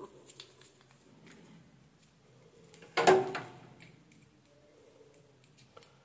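Handling of a power cord, plug and alligator-clip test leads while a series test lamp is wired up: small clicks and rustles, with one louder knock about three seconds in.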